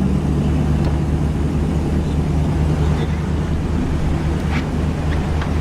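Fishing boat's motor running at a steady speed, a constant low drone.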